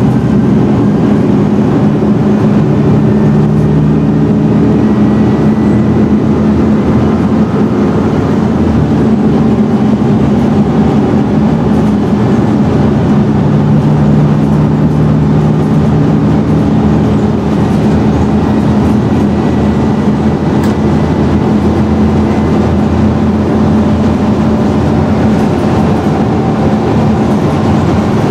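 Diesel engine of a Scania N113DRB double-decker bus running with a steady low drone, its tones shifting slightly in pitch a few times.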